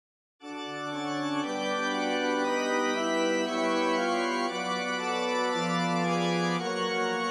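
Organ playing slow, held chords that change every second or so, starting about half a second in after a brief dead silence.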